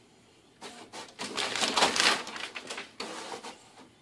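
Desktop printer at work, its mechanism rattling and clattering as it feeds a sheet out. It starts about half a second in, is loudest around the middle and dies down near the end.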